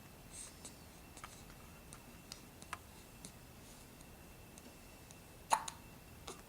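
A four-week-old baby hiccuping: a few short, sharp hics, the loudest about five and a half seconds in, among faint clicks.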